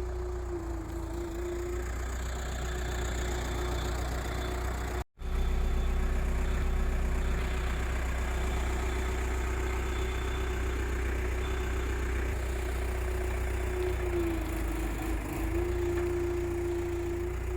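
Hydraulic excavator's diesel engine running steadily with a low hum and a steady tone, the pitch sagging briefly twice as the machine works. The sound cuts out for a moment about five seconds in.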